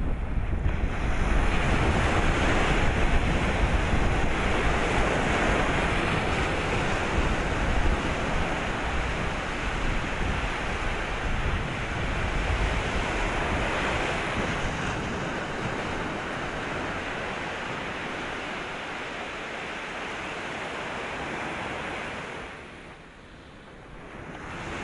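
Sea waves washing and breaking in slow swells, with wind rumbling on the microphone in the first several seconds. The surf eases off and dips briefly near the end before rising again.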